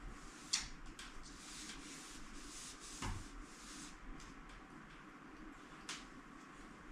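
Faint rubbing strokes of dust being wiped off ceiling fan blades, with a few light clicks and a duller knock about three seconds in.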